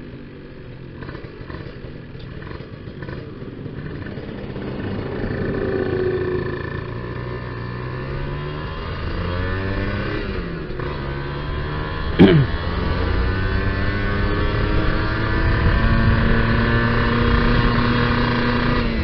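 Kawasaki Ninja R two-stroke single-cylinder engine running under way, its carburettor set up rich, accelerating with the pitch climbing and a brief dip at a gear change about ten seconds in. About twelve seconds in there is a sudden short loud sound that falls quickly in pitch.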